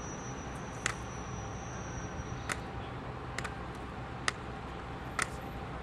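Quiet outdoor background hum with short, sharp clicks about once a second, and a thin high whine that stops about two and a half seconds in.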